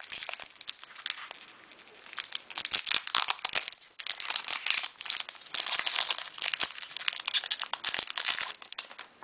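Foil wrapper of a Pokémon Fossil booster pack crinkling and tearing as it is opened by hand. It comes in bursts with short pauses between them.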